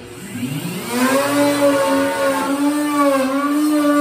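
A 3¼-horsepower Porter-Cable router spinning up to speed over the first second, then running steadily with a high motor whine. The pitch sags briefly about three seconds in as the pattern bit cuts into the quarter-inch plywood.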